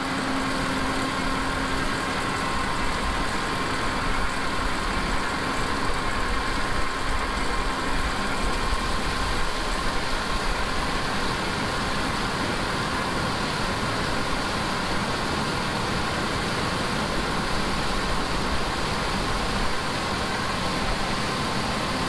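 Large farm machine's engine running steadily: a continuous, even engine drone with a faint steady whine over it.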